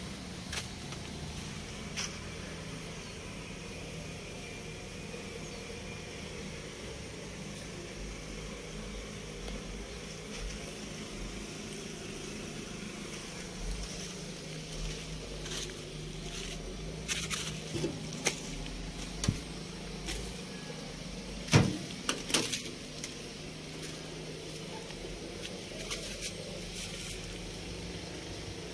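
An engine running steadily with a low, even hum. A few sharp clicks and knocks come in the later part.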